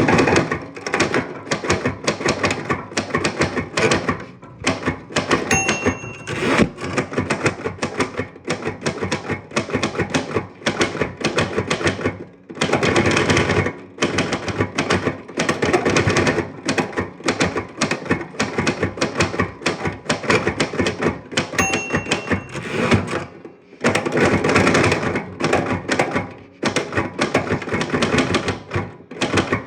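Typewriter keys clacking in fast runs of typing, broken by short pauses. The carriage bell dings twice, about six seconds in and about twenty-two seconds in.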